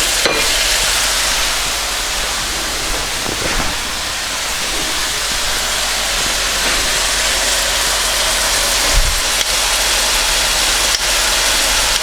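Chicken and vegetables sizzling in a hot wok with a splash of water, a steady hiss of frying and steam, broken by a few light clicks.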